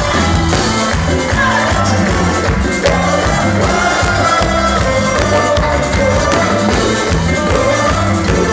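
Band music with singing over a steady, repeating bass beat.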